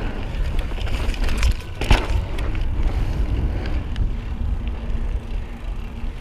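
Mountain bike rolling over a dirt trail, with wind rumbling on the microphone and a few sharp knocks and rattles from the bike about a second and a half and two seconds in.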